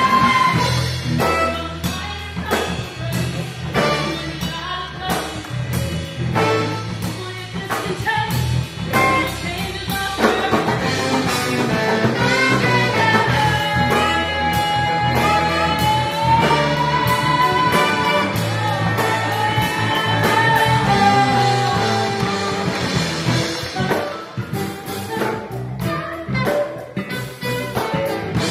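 Live band music: electric guitars, bass and a drum kit with saxophones, and a voice singing long held notes over it.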